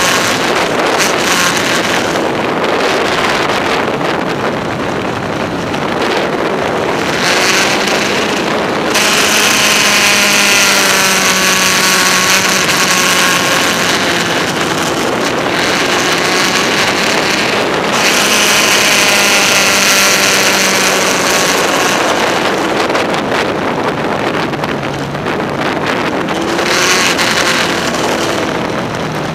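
Kawasaki Z1000SX inline-four engine running steadily at road speed, heard under heavy wind rush on the microphone that swells and eases as the bike rides along.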